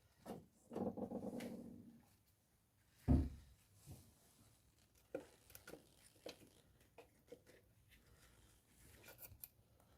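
Hand tools and a just-unscrewed spark plug being handled in the engine bay. A short rapid rattle comes in the first two seconds, a single thud about three seconds in, then light scattered clicks and knocks.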